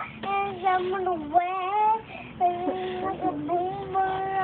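A young girl singing aloud unaccompanied, in several phrases of long held notes that slide up and down in pitch.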